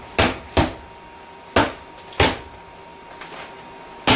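Plastic shake-and-pour pancake batter container being shaken, the batter knocking sharply inside it in pairs of thumps at uneven intervals.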